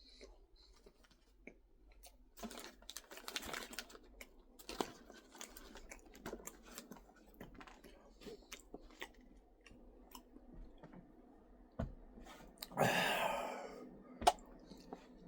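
Close-up chewing of a Lunchables cracker-crust pizza, with many small wet mouth clicks. A louder burst of noise lasting about a second comes near the end, followed by a sharp click.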